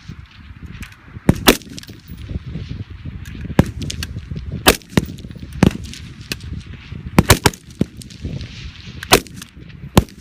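Gunshots on a shooting range: about ten single sharp shots at irregular intervals and of differing loudness, with a quick run of three about seven seconds in.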